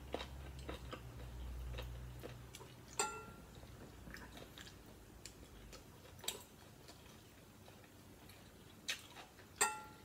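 Quiet chewing with small scattered clicks, and a metal spoon clinking against a glass plate twice, about three seconds in and near the end, each clink ringing on briefly.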